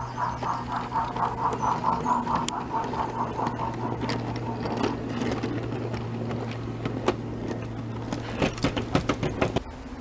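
O gauge model BR 'Jinty' 0-6-0 tank engine No. 47501 with a DCC sound decoder, its speaker playing an even rhythm of steam exhaust chuffs over a steady low hum as it pulls away with its goods wagons. The chuffs fade out about halfway through, and a quick run of sharp clicks comes near the end as the wagons roll past.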